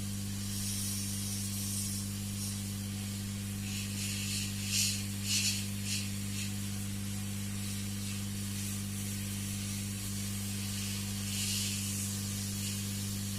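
Hot air gun blowing a steady hiss of hot air over a circuit board to dry off washing thinner, over a steady low hum. The hiss swells briefly a few times about five seconds in and again near twelve seconds.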